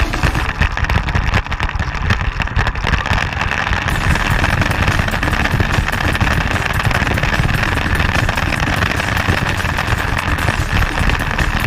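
Motorcycle engine running steadily under way, heard from an on-board camera, with wind buffeting the microphone.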